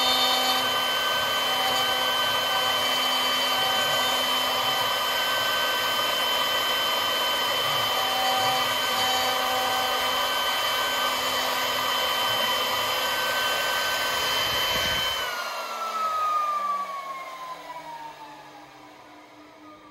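CNC router spindle with a conical V-bit engraving olive wood: a steady high whine over the noise of the cut. About fifteen seconds in the spindle is switched off, and its whine glides down and fades as it spins down.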